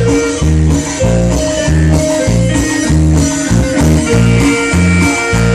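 Instrumental Latin band music: a plucked guitar melody over a steady, rhythmic bass line.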